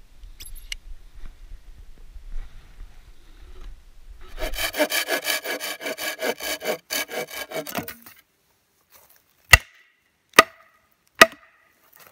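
Hand-held folding saw cutting through a wooden axe handle just above the head, in quick rhythmic strokes for about three and a half seconds starting about four seconds in. Then three sharp, loud knocks near the end.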